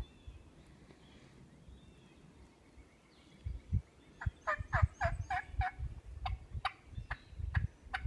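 Hen turkey yelps blown on a turkey call, a run of short falling notes starting about four seconds in, about four a second at first and then slower and further apart, with low thumps underneath.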